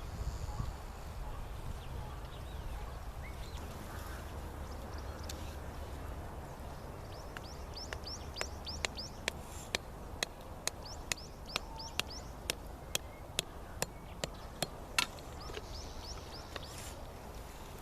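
Small birds chirping in short repeated calls, with a run of sharp, evenly spaced taps about three a second through the second half, the last one the loudest.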